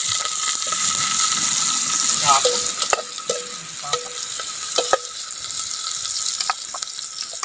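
Garlic, onion and freshly added ginger sizzling as they fry in a metal pot over a wood fire. A metal spatula stirs them, knocking against the pot several times in the middle of the stretch, each knock ringing briefly.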